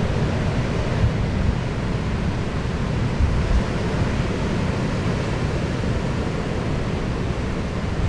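Steady low rumbling noise of wind and sea, heaviest in the bass, with no distinct events.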